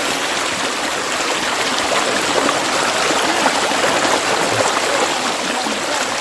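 Jungle stream flowing, a steady rush of water.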